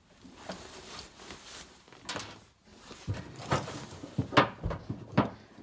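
Clicks and knocks of hands and a tool prying at the plastic snap clips that hold the latch rods inside a pickup tailgate, trying to free the rods; the clicking grows busier and louder about halfway through.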